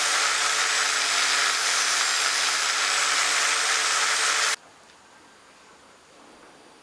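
An electric power tool running steadily with a loud hiss over a low motor hum, cutting off abruptly about four and a half seconds in and leaving only a faint background.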